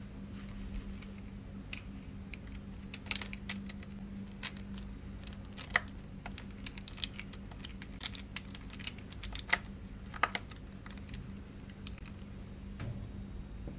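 Irregular light clicks and taps of small metal carburetor parts being handled and fitted together by hand on a workbench, with a few sharper clicks about halfway through and again a little later. A steady low hum runs underneath.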